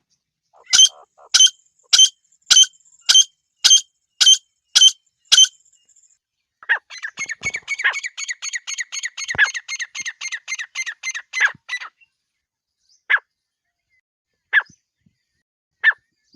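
Partridge (teetar) calls of the kind used as a hunting lure: about ten sharp, evenly spaced notes, nearly two a second, then a fast chattering run of notes for about five seconds, then single notes every second and a half.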